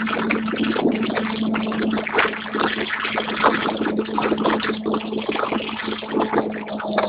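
Motorcycle riding at high speed, heavy wind rushing and buffeting over the microphone, with the engine's steady drone underneath.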